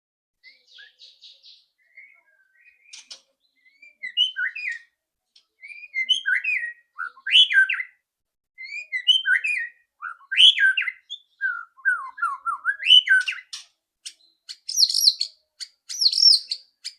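White-rumped shama singing: a string of varied whistled phrases with short gaps between them, ending in a fast, high-pitched rattling chatter.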